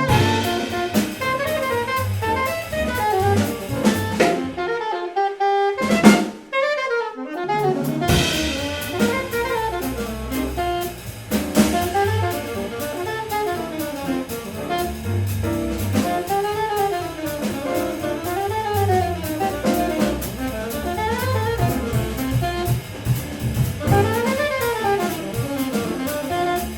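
Jazz quartet of saxophone, piano, bass and drum kit playing. About four seconds in, the bass and drums drop out for a break, with a single sharp hit near six seconds, while the saxophone plays alone leading into its solo. The full band comes back in about eight seconds in under the saxophone solo.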